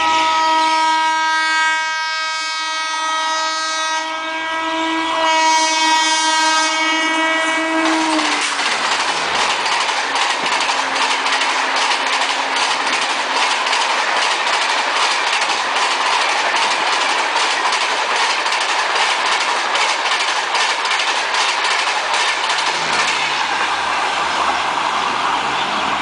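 A WCAM-2P electric locomotive sounds its horn in one long blast of about eight seconds. Then a Rajdhani Express rake of LHB coaches rushes past at speed, with rapid clickety-clack of wheels over rail joints continuing to the end.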